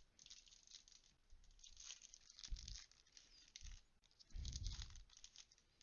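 Faint crinkling and rustling of Yu-Gi-Oh trading cards and pack wrappers being handled, with a couple of soft thumps.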